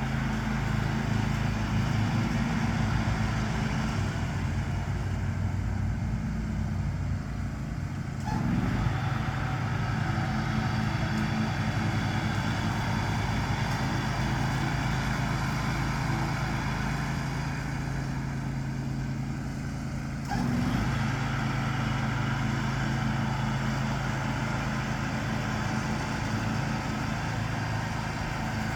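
John Deere X500 riding lawn tractor running steadily while mowing, engine and cutting deck going. The sound swells suddenly twice, about 8 seconds in and about 20 seconds in.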